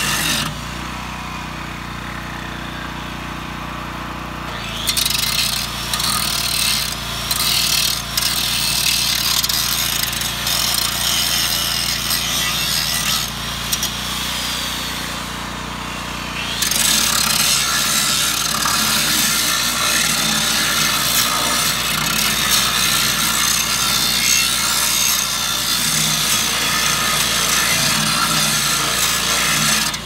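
Large electric angle grinder grinding down built-up weld on the steel cutting edge of a backhoe bucket. The grinding eases off for a few seconds just after the start and again around the halfway mark, then runs steadily.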